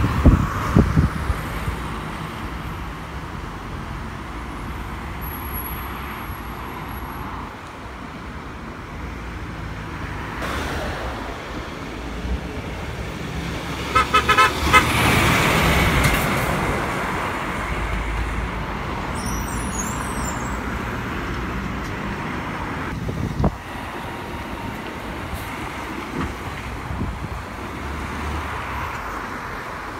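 Lorries and cars passing at a roundabout; about 14 s in, a MAN lorry gives a quick run of short horn toots as it comes round, and its engine grows louder as it pulls past.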